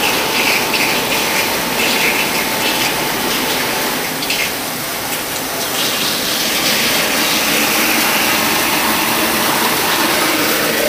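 Steady gushing rush of water draining through a siphonic rainwater roof outlet running full bore, at about 33 litres per second.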